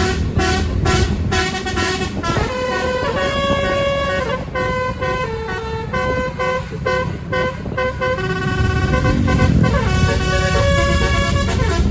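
Indonesian bus 'telolet' basuri horn playing a tune: quick repeated blasts, about two to three a second, for the first couple of seconds, then held notes that step up and down in pitch. The bus engine's noise grows louder about eight seconds in.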